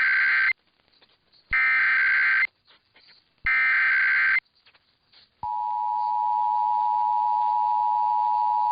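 Emergency Alert System SAME header: three bursts of data tones, each about a second long and about two seconds apart, encoding a required monthly test. About five seconds in, the steady two-tone EAS attention signal (853 and 960 Hz) begins and holds, announcing the alert.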